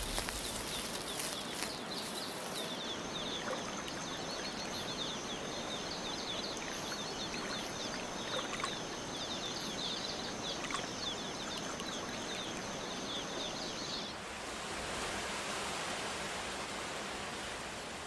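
Rainforest ambience: an even hiss with a thin, steady high whine and rapid high chirping over it. About 14 seconds in the whine and chirping stop, leaving a brighter, broader rushing hiss.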